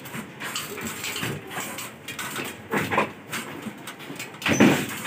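Irregular knocks, rattles and scrapes of hands and tools working on the metal frame and panels of a ceiling-suspended air-conditioner indoor unit, with a louder clunk about four and a half seconds in.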